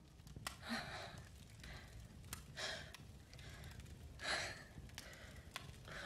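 A young woman breathing in faint, shaky sighs and gasps, four or five breaths a second or two apart, the strongest about four seconds in. Soft, sharp clicks fall between the breaths.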